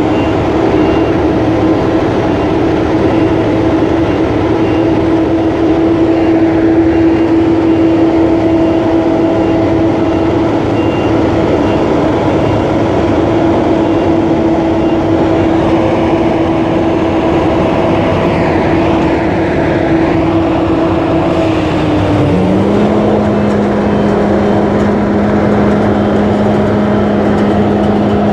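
2009 Gleaner A66 combine running at a standstill, its AGCO Sisu six-cylinder diesel and machinery giving a loud, steady hum. About three-quarters of the way through, the main note drops and settles at a lower steady pitch.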